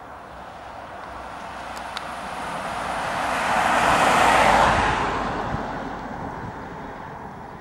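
A car passing by on the road: its tyre and engine noise swells to a peak about four seconds in and then fades away.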